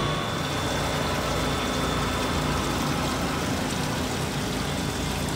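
Winery grape press and its crush-pad machinery running: a steady low hum with an even hiss over it.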